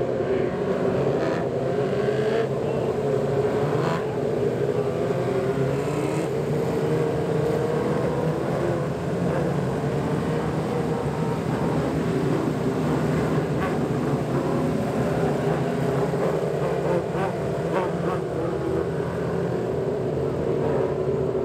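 Engines of a pack of micro mini sprint race cars running together at low speed, several overlapping pitches drifting gently up and down with no hard acceleration.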